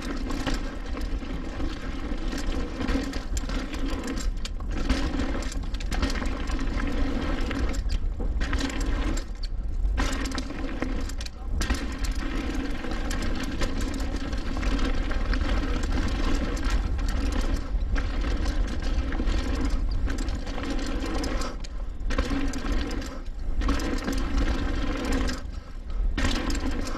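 Mountain bike coasting downhill on a trail: the rear freehub gives a steady mechanical buzz, broken off briefly several times when the rider pedals, over a constant rumble of wind and trail noise on the bike-mounted mic.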